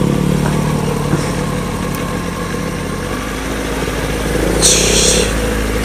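Sport motorcycle engine, a Kawasaki ZX-6R inline-four, running steadily at low revs while the bike rolls at walking pace, with a short hiss about four and a half seconds in.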